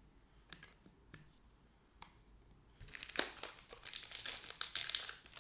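A few faint clicks of cards being handled, then, about three seconds in, loud crinkling of a foil trading-card pack wrapper.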